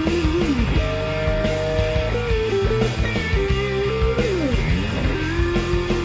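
Upbeat rock background music led by guitar, its lead notes sliding up and down in pitch.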